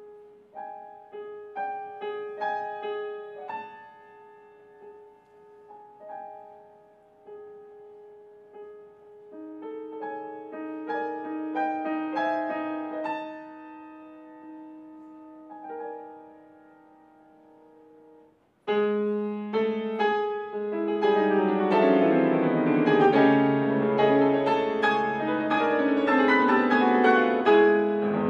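Solo grand piano playing a nocturne: a soft, sparse melody of single notes over held tones, then, about two-thirds of the way in, a sudden loud passage of dense chords and quick notes.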